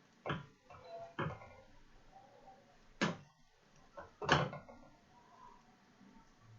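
Kitchen clatter: four short knocks and clunks of cookware or cupboards being handled, the last two the loudest, with quiet between.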